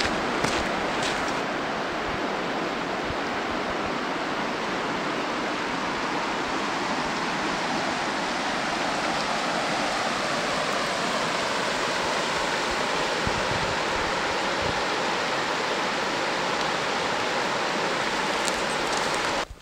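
Rapids in a river rushing steadily over rocks, a loud, even sound of running water that cuts off suddenly near the end.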